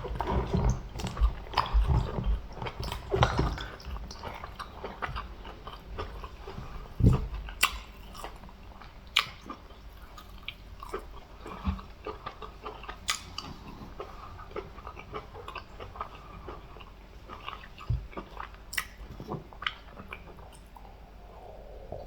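Close-miked chewing and mouth smacking on soft, wet food, with many irregular wet clicks and a few low thumps; busiest in the first few seconds, then sparser.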